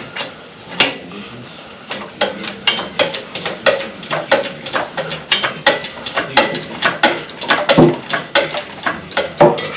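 Metal parts clinking and knocking against each other in a quick, irregular run of sharp clacks, a few each second.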